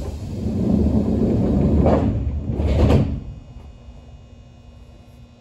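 Passenger train's sliding doors working at a station stop: a sudden start, about three seconds of loud rumbling as the doors slide, and a sharper knock near the end as they stop.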